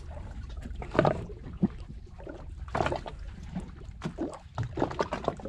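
Water slapping and splashing against a small boat's hull in a few irregular bursts, over a steady low rumble.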